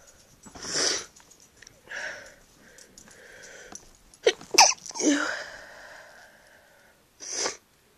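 A person with a cold sneezing: a few short, gasping breaths in, then a sneeze about four and a half seconds in that comes as two quick sharp bursts, followed by a drawn-out breath out and one more short breath near the end.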